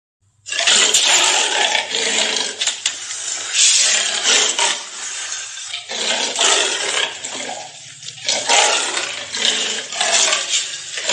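Big cat (leopard or cougar) calling: a run of harsh, breathy calls, one after another with short breaks, starting about half a second in.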